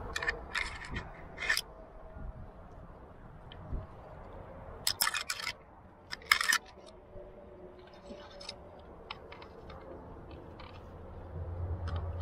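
Metal climbing gear on a trad rack (carabiners and protection) clinking and scraping in short clattering bursts as the climber moves up the rock. The loudest bursts come about five and six and a half seconds in.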